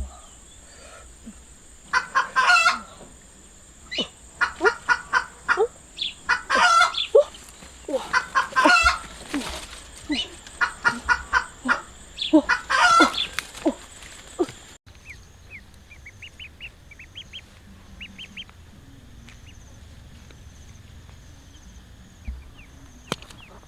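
Chickens clucking in quick repeated calls over a steady high-pitched drone. About fifteen seconds in, the sound cuts off abruptly to a quieter stretch with a few faint short chirps.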